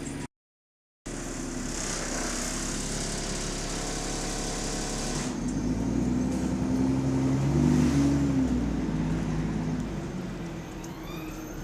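Bus engine running, heard with a heavy exhaust leak; after a brief dropout just after the start it runs steadily, then from about five seconds in it revs up louder and higher, peaks and eases back down. A siren starts to rise faintly at the very end.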